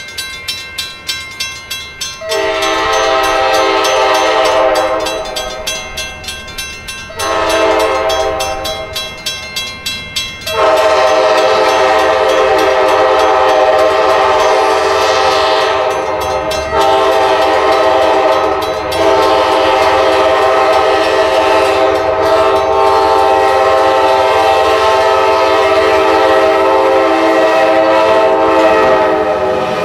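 Amtrak Dash 8 locomotive's multi-chime air horn sounding for a grade crossing: two long blasts, then one long blast held to the end, with brief breaks about 17 and 19 seconds in. Between the first blasts a crossing bell dings about twice a second.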